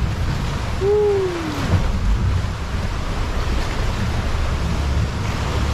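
Wind buffeting the microphone over sea water sloshing around a boat inside a sea cave, a steady low rumble. About a second in, a single short vocal hoot rises slightly and then falls in pitch.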